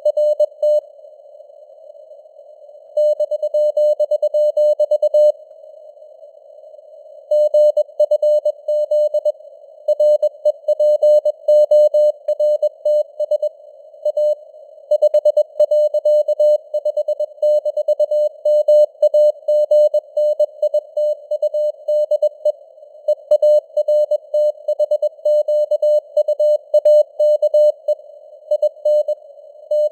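Morse code (CW) news text sent at 21 words per minute as a single-pitched beep keyed rapidly on and off, over simulated radio static whose signal strength varies (QSB fading). Twice in the first few seconds the keying pauses for about two seconds and only the hiss is heard.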